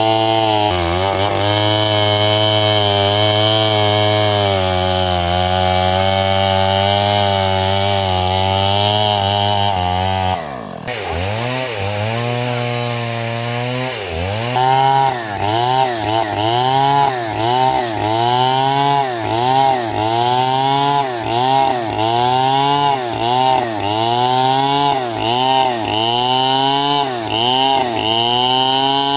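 Stihl chainsaw running at high, steady speed for about ten seconds, then suddenly dropping back. After a short pause it is revved in quick blips, about one a second.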